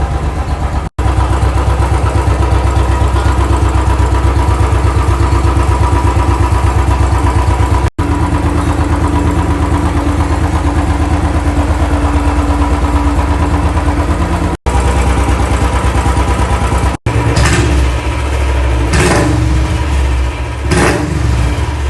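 Royal Enfield Classic 350's carbureted single-cylinder engine idling steadily with an even, rapid beat, then blipped three times near the end.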